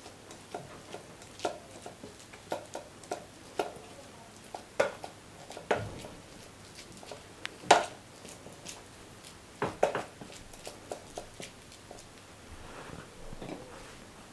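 A plastic spatula patting and pressing down a layered salad in a metal springform ring: short, irregular soft taps and clicks, about one or two a second. A soft plastic rustle comes near the end.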